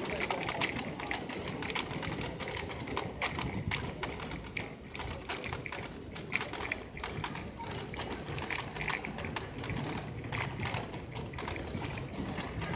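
A bicycle rattling and clicking as it rolls over paved sidewalk slabs, irregular sharp knocks over a steady background of street traffic noise.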